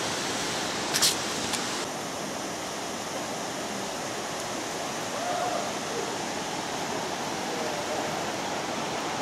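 Steady rush of flowing water, with one sharp click about a second in.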